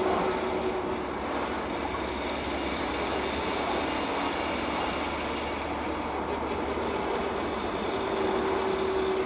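Cab road noise of a 1997 Ford Ranger with a steady whine from its freshly rebuilt rear differential while coasting in fourth gear; the whine fades about a second in and comes back near the end. The owner puts it down to the pinion bearing preload loosening or the ring and pinion gears not meshing properly.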